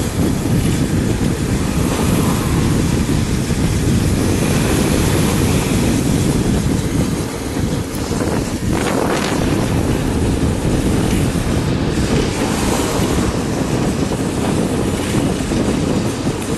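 Steady rush of wind and road noise from a vehicle travelling along a highway, with wind buffeting the microphone. A brief rising swish about eight or nine seconds in, like another vehicle passing.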